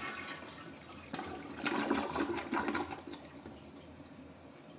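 Mansfield Alto toilet flushing: water rushes and swirls down the bowl, with a few louder surges between about one and three seconds in, then settles to a quieter steady rush as the flush ends.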